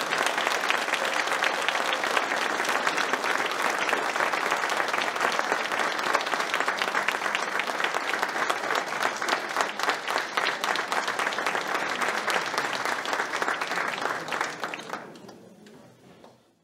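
Audience applauding steadily, the clapping dying away over the last two seconds.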